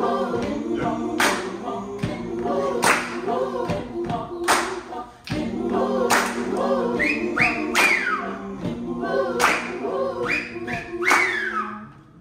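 Vocal ensemble singing an improvised a cappella piece in held, layered chords over hand claps on a steady beat. A few high falling vocal swoops come in over the last few seconds, and the singing cuts off sharply at the end.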